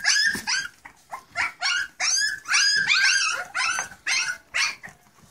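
English Springer Spaniel puppies squealing and yipping in a rapid run of short, high-pitched cries, about three a second, while they scramble over their mother to nurse; the cries die away near the end.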